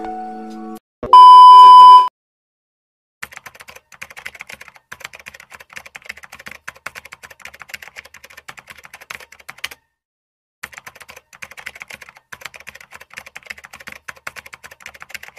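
A loud, steady electronic beep lasting about a second, then a rapid keyboard-typing sound effect that runs for several seconds, pauses briefly, and resumes.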